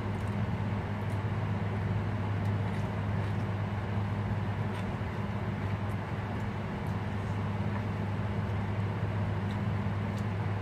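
Steady low machine hum with an even rushing noise over it, like a running fan or motor, and a few faint clicks.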